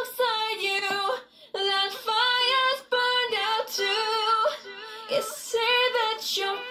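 Soloed female lead vocal singing slow sustained phrases with no backing music, with a half-note delay effect switched on.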